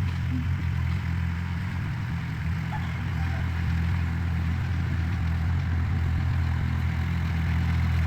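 Heavy equipment's diesel engine running steadily with a low, even drone.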